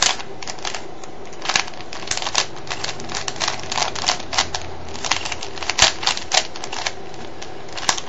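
Plastic layers of a 3x3 Rubik's cube clicking and clacking as its faces are turned by hand, in quick irregular runs of clicks: a sequence of moves that sends a corner to its place during a blindsolve.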